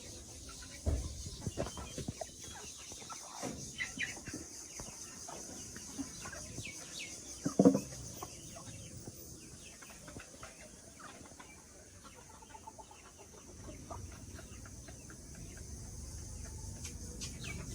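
Chickens clucking and calling in short, scattered notes, with one louder call about seven and a half seconds in.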